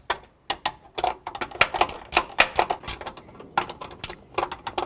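Quick, irregular metallic clicks and taps, several a second, from hand work on hood latch hardware.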